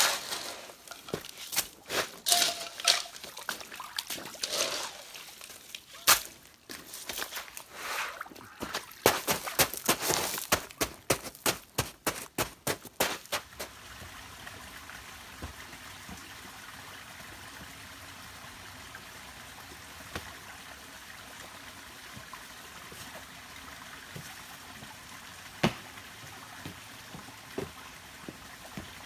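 Water being poured out to douse a campfire, in dense, irregular sharp bursts for about the first fourteen seconds. After that comes the steady flow of a rocky stream, with a few isolated knocks.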